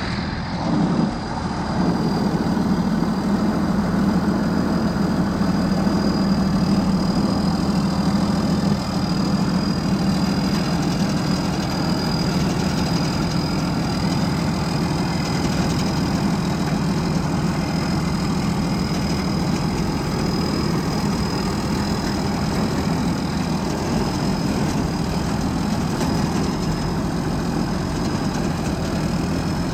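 Large rice combine harvester's diesel engine running steadily, with a thin, steady high-pitched tone above the low engine drone.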